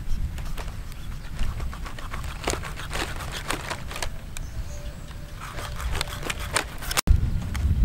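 Knife cutting into a stingray's flesh and cartilage: a run of short, crisp clicks and crunches, in two busier spells, over a steady low rumble.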